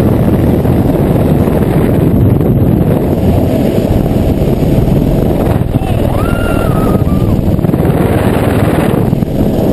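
Freefall wind rushing hard over the camera's microphone as a tandem skydiving pair leaves the helicopter and falls: a dense, steady rush with no let-up. A short wavering tone rises through it about six seconds in.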